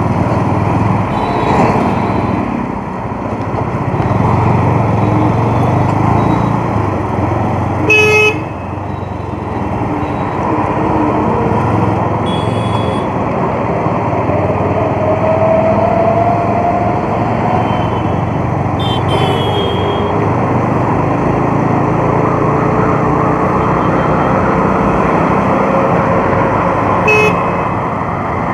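Bajaj Avenger motorcycle running at cruising speed, with steady engine rumble and wind and road noise. Short vehicle horn toots from traffic sound four times, the loudest about eight seconds in.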